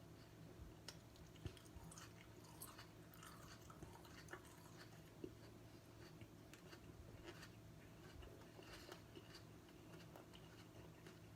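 Faint chewing and crunching of a raw Chocolate Jigsaw chili pod, a scatter of small irregular clicks.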